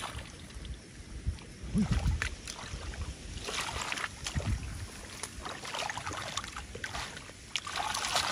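Shallow water sloshing and trickling, with scattered small splashes and faint clicks, and a couple of low thumps about two seconds in and again past four seconds.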